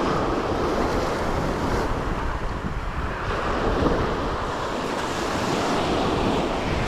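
Sea surf washing onto the shore, rising and falling in swells, with wind buffeting the microphone.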